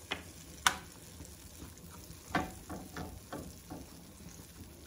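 Metal spoon clinking and scraping in a white-coated frying pan as tomato paste is pushed about and stirred into melting butter, over a faint sizzle. There is one sharp clink near the start, then a run of several shorter clinks and scrapes about halfway through.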